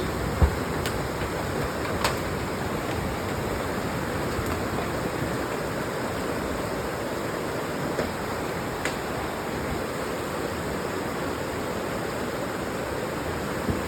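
River in flood rushing steadily, with a few faint clicks over it.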